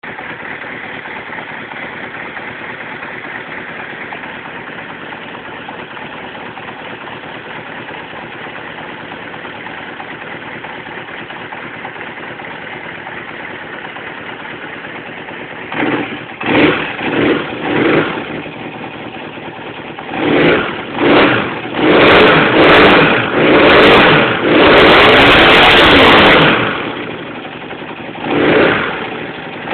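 1983 Honda CB400 II's air-cooled parallel-twin engine idling steadily for about fifteen seconds, then revved in short throttle blips that climb higher, held at high revs for about two seconds (around 10,000 rpm), and dropping back to idle with one last blip near the end.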